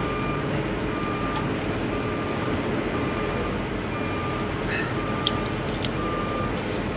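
Diesel truck engine idling steadily, with a short beep repeating about once a second and a couple of small clicks.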